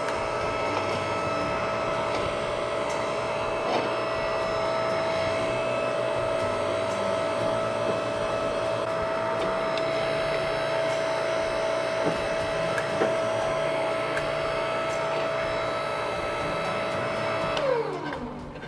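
Electric motor of a metal-straightening press running with a steady whine, with a few light metal clinks as an iron strap is set under the ram and pressed cold. Near the end the motor is switched off and its whine falls in pitch as it spins down.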